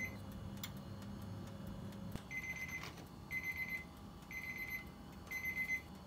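Oven timer alarm beeping at the end of the baking time: short bursts of rapid high beeps, about half a second each, repeating roughly once a second. A low steady hum cuts off a little over two seconds in.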